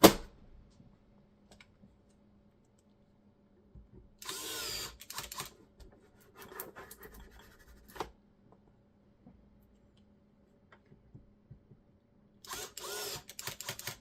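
Cordless electric screwdriver whirring in short runs as it drives the case screws back in: one run about four seconds in, a weaker one near seven seconds and another near the end. There is a sharp click at the very start.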